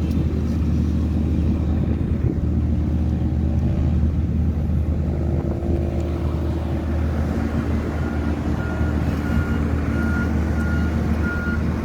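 Heavy diesel engine of construction machinery running with a steady low drone, its pitch shifting briefly midway. About eight seconds in, a reversing alarm starts beeping, a little under two beeps a second.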